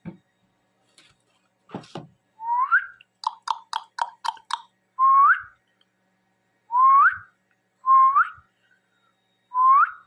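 Ringneck parrot whistling: five short whistles that slide upward, spaced a second or two apart. Between the first and second comes a quick run of about six sharp chirps, and two short knocks come just before the first whistle.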